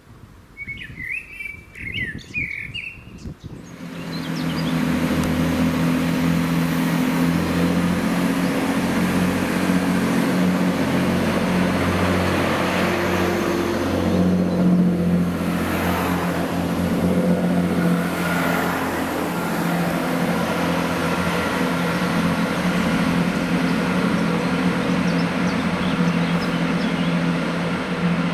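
A few bird chirps, then from about four seconds in a diesel multiple unit's underfloor engines running, a steady low drone that holds on.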